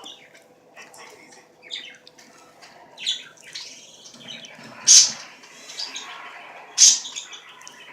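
Close-up mouth sounds of someone eating: chewing and wet smacks at the lips, scattered through, with two sharper, louder smacks about five and seven seconds in.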